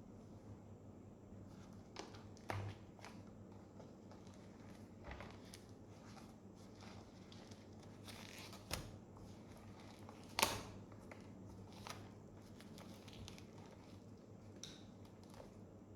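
Faint rustling and crinkling of the earbuds' box packaging being handled, with scattered small clicks and taps, the sharpest about ten seconds in, over a low steady hum.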